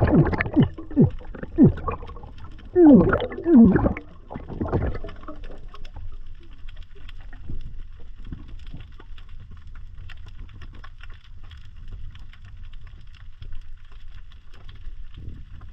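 Underwater sound: gurgling air bubbles from a diver, with wobbling, gliding pitch, during the first five seconds. A faint, steady crackle of the water follows.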